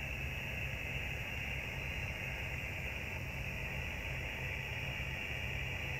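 Steady low engine rumble with a constant hiss, heard on the deck of a vessel on the river.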